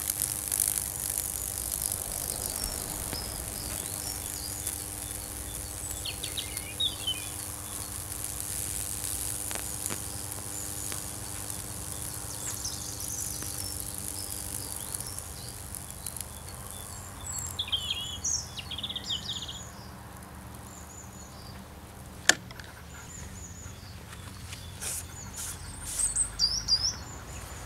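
High-voltage discharge sizzling steadily as it burns a Lichtenberg figure into plywood wet with baking soda solution, over the hum of the microwave oven transformer; the hum drops away about halfway. Birds chirp several times and a single sharp click comes near the end.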